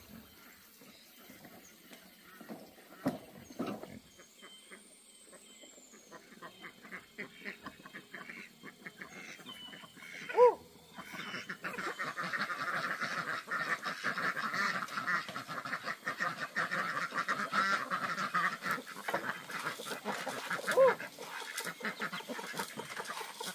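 Domestic geese honking loudly, once about ten seconds in and again near the end, with a dense clamour of the poultry flock, ducks and chickens, calling between the two honks.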